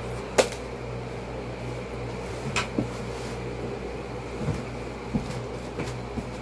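Steady low hum of room noise, with a sharp click about half a second in and a few quieter clicks and knocks later.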